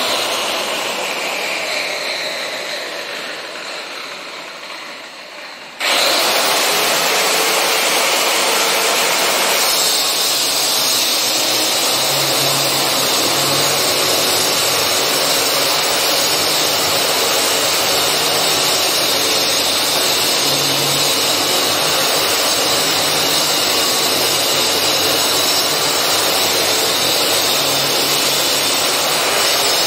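Power cutter for chasing wire grooves in a wall, winding down with a falling whine and fading. About six seconds in it starts up again abruptly and runs steadily and loudly, cutting a channel for concealed wiring.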